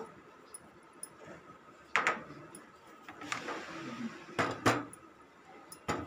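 Kitchenware clinking and knocking as ingredients are added to a glass mixing bowl with a metal spoon in it and a plate is handled: about five sharp knocks, the loudest about two seconds in and twice more around four and a half seconds, with a few lighter ticks between.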